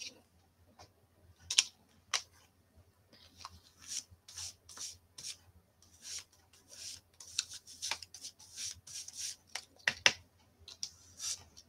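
Round ink blending brush rubbed in short, uneven scratchy strokes on cardstock and dabbed on an ink pad, with a couple of sharper taps.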